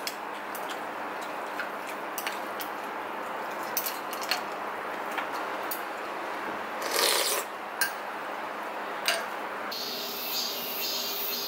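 Metal spoon and chopsticks clinking now and then against ceramic bowls during a meal of noodle soup. About ten seconds in, cicadas take over with a steady high-pitched buzz.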